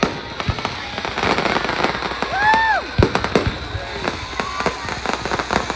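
Fireworks display: a rapid run of bangs and crackling bursts, the loudest bang about three seconds in, with a short rising-and-falling whoop just before it.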